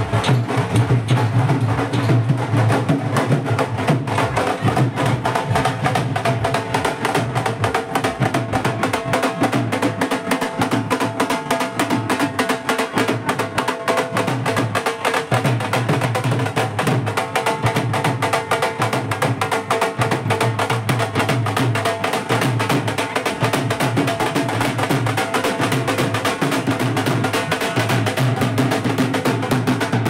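Double-headed dhol drums beaten with sticks in a fast, continuous rhythm, with held notes from other music underneath.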